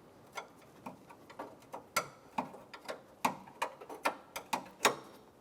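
Ratchet or socket wrench clicking in an uneven string of sharp ticks, about two or three a second, while the 10 mm hood latch mounting bolts are broken loose and backed out.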